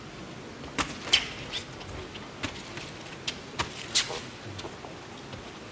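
Boxing gloves striking in an exchange of punches: about seven sharp smacks at uneven spacing over a steady arena murmur.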